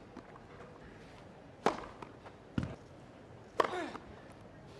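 Tennis serves on a grass court: a sharp crack of the racket striking the ball about one and a half seconds in, a duller thud about a second later, and another racket strike near the end with a brief trailing sound after it.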